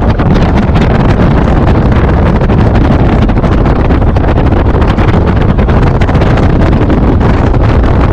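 Wind buffeting the microphone of a car moving at road speed, over steady road noise; loud and unbroken.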